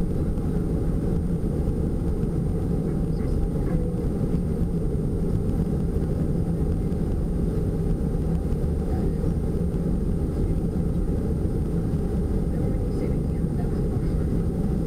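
Steady road and engine noise inside a moving van's cabin: an even, low rumble of tyres and engine with no change through the stretch.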